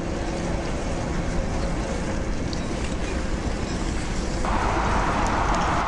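Steady road-traffic noise, a low rumble with tyre hiss; about four and a half seconds in, a louder hiss sets in suddenly.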